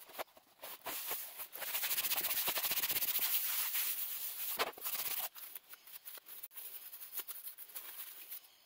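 Blue paper towel rubbed briskly back and forth over a plastic cutting mat, wiping up a spill. It is a fast, steady scrubbing for a few seconds, then drops about halfway through to slower, quieter wipes.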